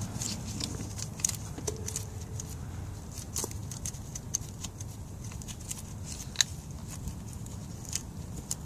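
Scattered light clicks and clinks at irregular times, from hand tools and small metal parts being handled during engine repair work, over a steady low hum.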